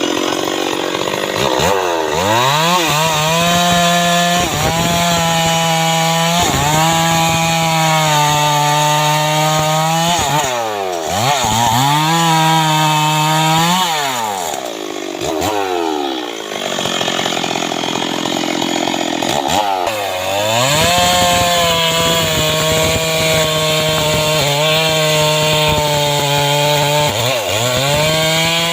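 Two-stroke chainsaw cutting wood at full throttle, its pitch holding steady through each cut and briefly rising and falling between cuts, about five times; a short spell of lower, uneven revs in the middle.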